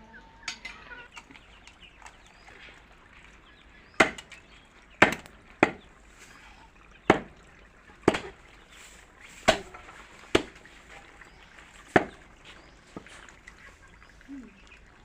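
A heavy blade chopping through a cow's head, hacking bone into pieces: about eight sharp chops, irregularly spaced a second or so apart, starting about four seconds in, with a few lighter knocks around them.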